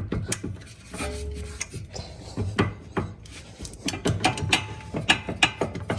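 Metal scraping with irregular clicks and knocks as a seized sway-bar end link is wiggled and worked loose from its mount in the suspension.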